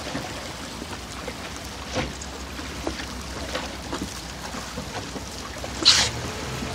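Water splashing and lapping against a boat's hull in an unsteady patter, with a louder splash about six seconds in.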